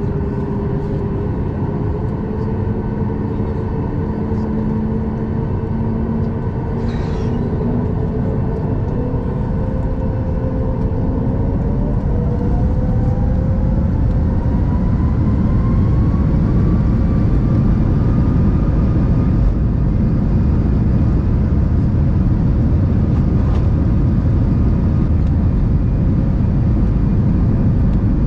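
Boeing 737 MAX 9's CFM LEAP-1B jet engines heard from the cabin over the wing: a steady hum with a whine that rises in pitch about twelve seconds in as the engines spool up to takeoff thrust. A low rumble then grows louder through the takeoff roll.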